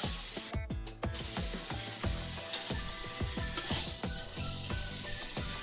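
Chicken and sliced jalapeños frying in hot oil in a pan, a steady sizzle, with light background music playing over it.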